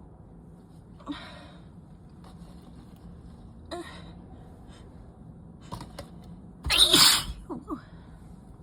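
A person's sneeze during an allergy or cold sneezing fit: two breathy catches about one and almost four seconds in, then one loud sneeze near seven seconds, followed by a couple of short voiced gasps.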